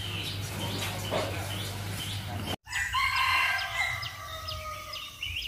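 Small birds chirping over a low steady hum. Then, after an abrupt cut about two and a half seconds in, a rooster crows once with a long held call, and quick high bird chirps follow.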